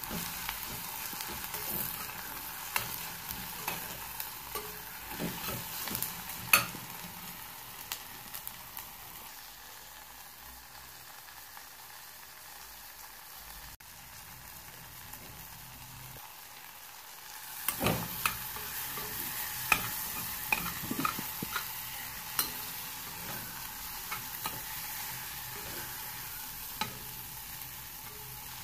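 Omena fish and tomatoes sizzling in a stainless steel pot, with a metal spoon scraping and clinking against the pot as they are stirred. The stirring stops for several seconds midway, leaving only the quieter sizzle, then starts again with frequent clinks.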